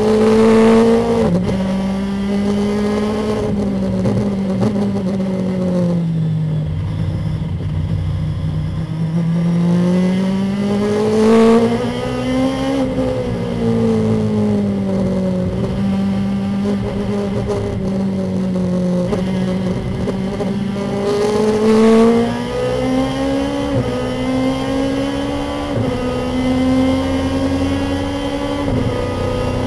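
Lexus IS-R race car's engine heard from inside the cockpit at racing speed, its note rising and falling with the throttle and changing suddenly at several gear shifts.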